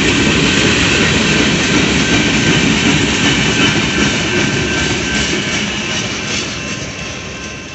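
Freight cars of a CSX manifest train, covered hoppers and then tank cars, rolling past close by: a steady rumble and hiss of steel wheels on rail. The sound fades over the last couple of seconds as the tail of the train passes.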